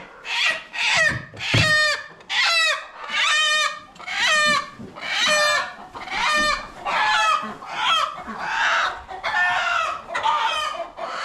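Chicken squawking over and over, about one loud call a second, each call dropping in pitch.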